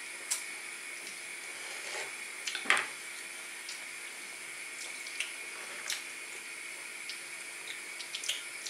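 Kitchen knife cutting cooked sausage into cubes on a wooden chopping board: scattered soft taps and knocks of the blade on the board, the loudest a little under three seconds in. Under them runs a steady watery hiss.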